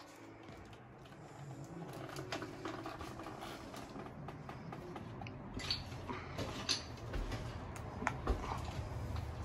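Scattered sharp knocks and creaks, about four of them, over a steady low rumble, typical of people moving about and handling things in an empty room.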